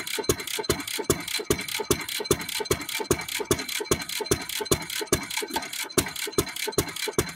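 A 1917 Fairbanks-Morse Model Z 3 hp single-cylinder throttle-governed engine running steadily, just after starting. It fires every cycle rather than hitting and missing, giving an even, rapid beat of about seven strokes a second.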